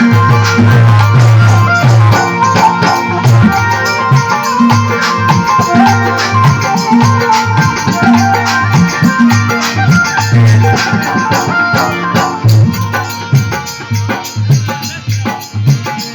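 Instrumental passage of a Rajasthani devotional folk song (bhajan): a melody played over a steady drum beat with rattling, shaker-like percussion, and no singing yet.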